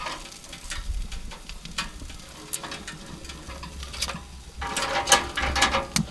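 Metal grill tongs clicking and scraping against the smoker's metal grill grate as lobster tails and a butter tray are shifted about. The clicks are scattered, then come thick and louder as a rattle for about a second near the end.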